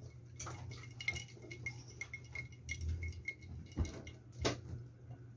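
Light clicking and ticking, about three ticks a second, with two sharper knocks near the end as a glass jar mug is lifted from the table, over a steady low hum.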